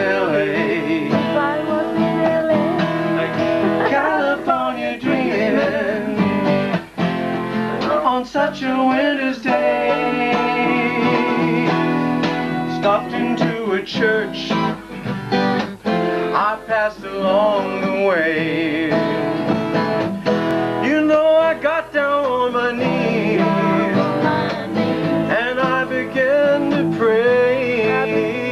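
Acoustic guitar strummed continuously, with a man singing along.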